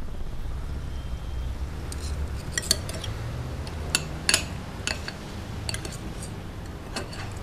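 Steel knife and fork clinking and scraping on a ceramic plate while cutting up a fried breakfast. About a dozen irregular sharp clinks start about two seconds in, over a low steady hum.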